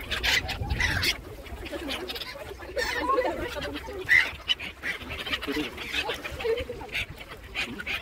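A flock of mallard ducks and black-headed gulls calling as they crowd in to be fed, with quacks and short sharp squawks overlapping throughout.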